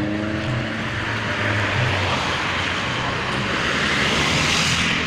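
Road traffic: a vehicle passing close on the highway, its tyre and engine noise swelling over about four seconds and loudest near the end, over a low engine hum.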